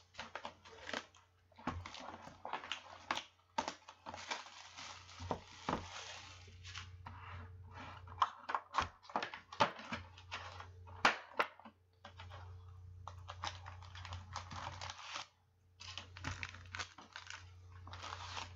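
Plastic shrink wrap crinkling and tearing as it is stripped from a sealed 2016 Panini Prizm card box, then cardboard and foil card packs rustling and clicking as the box is opened and the packs are pulled out. A steady low hum runs underneath.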